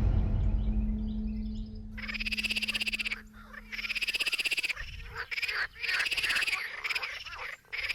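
Frogs calling in a run of fast pulsed trills, each under a second long, repeating about six times with short gaps. The tail of a music track fades out in the first couple of seconds.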